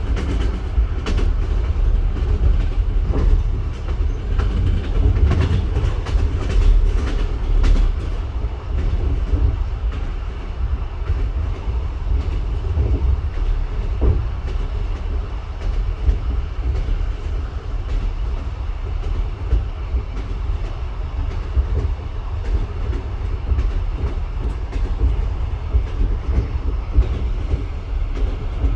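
Train running along the track: a steady low rumble with wheels knocking over the rail joints in an unbroken clatter, the knocks thickest in the first eight seconds or so.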